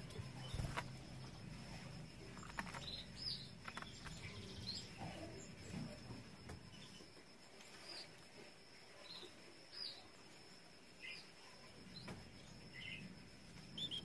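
Caged canaries giving short, scattered chirps, about one every second or two. A few light taps in the first few seconds, and a faint steady high whine throughout.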